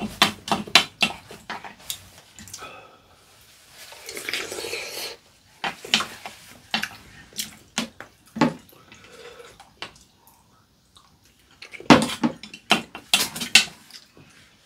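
Chopsticks and a fork clinking and scraping against a ceramic bowl as noodles are stirred and lifted, in several clusters of sharp clicks. A one-second rushing noise comes about four seconds in.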